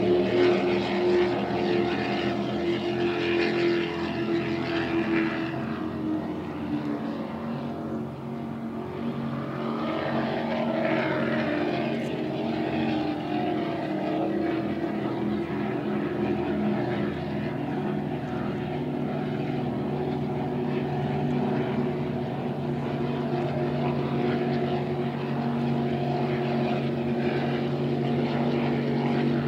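Powerboat engines running with a steady drone across the water, the pitch sagging a little a few seconds in.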